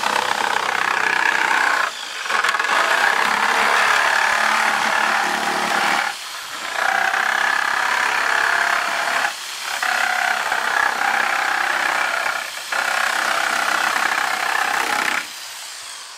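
Jigsaw cutting around a plastic bucket, running steadily in stretches of a few seconds with four short breaks, then stopping about fifteen seconds in as the cut is finished.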